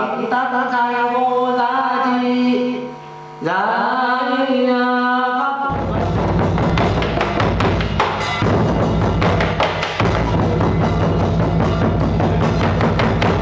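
Ceremonial music: long held, wavering notes, sung or played, then from about six seconds in, fast, dense drumming and percussion.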